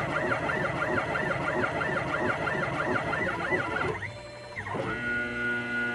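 Stepper motors of a home-built wooden CNC machine whining in even rising-and-falling sweeps about three times a second as the axes make repeated short moves. About four seconds in the pitch drops away, then climbs back into a steady whine.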